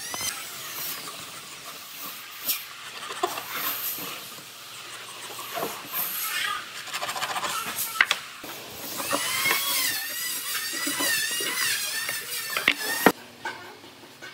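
Power tool working hardwood: a high whine whose pitch dips and recovers again and again as the tool bites into the wood, with a few sharp knocks. It cuts off abruptly about 13 seconds in.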